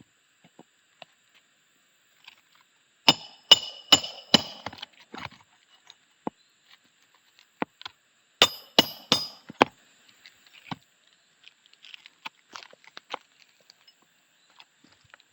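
Sharp hammer strikes with a short metallic ring: a quick run of about five, then about four more a few seconds later, with light taps between. This is a roofing nail being driven to fasten an asphalt shingle back in place.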